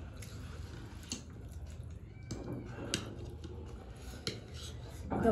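Metal forks clicking and scraping against plates and a bowl while eating noodles, a few sharp clicks spread over a quiet background.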